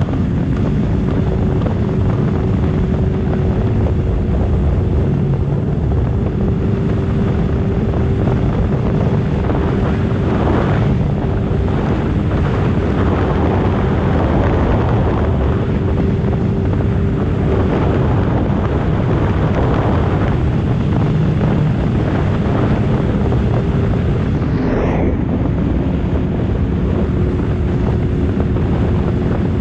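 Sea-Doo personal watercraft running steadily at speed: a low engine and jet-pump drone with a steady hum, mixed with wind rushing over the microphone. A short whoosh sweeps past near the end.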